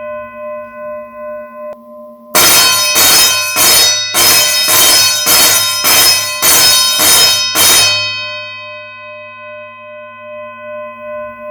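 School bell rung in a quick run of about a dozen loud metallic strokes, roughly two a second, its ring dying away afterwards. A steady, slowly pulsing bell tone stops just before the strokes and rings on again after them.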